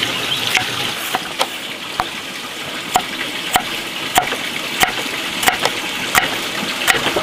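Serrated kitchen knife slicing through pineapple and then tomato, knocking on a wooden chopping board with each cut, about one cut every two-thirds of a second, over a steady hiss.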